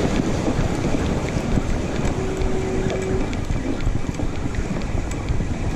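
Wind buffeting the microphone over waves washing against jetty rocks, a steady rough noise.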